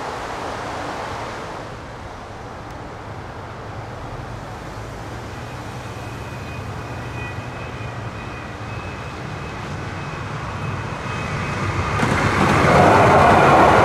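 Outdoor traffic and wind noise, then a Siemens-Duewag U2A light rail train approaching the crossing, its rolling noise rising sharply and becoming loud near the end.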